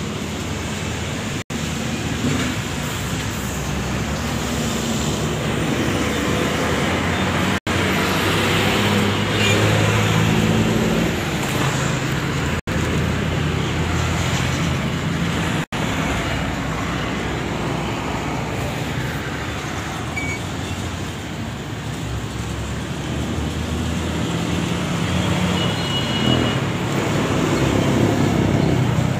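John Deere 5045D tractor's three-cylinder diesel engine running steadily at idle, swelling a little about a third of the way in and again near the end. The sound drops out for an instant four times.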